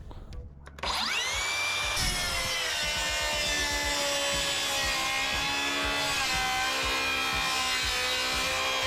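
Makita XGT 40V cordless circular saw's brushless motor spinning up about a second in, with a rising whine, then running steadily at full speed.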